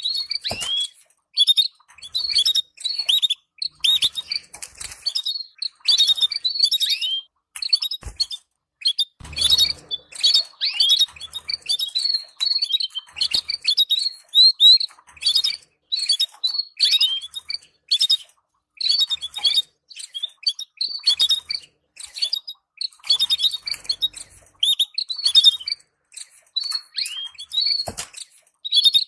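Canaries chirping in quick runs of short, high calls, the stimulating chatter ('tabtaba') played to canary breeding pairs. A few low knocks come in, two near a third of the way through and one near the end.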